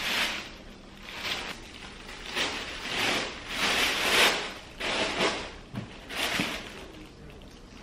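Thin plastic wrapping crinkling and rustling in a series of short, uneven bursts as it is pulled open and a furry handbag is drawn out of it.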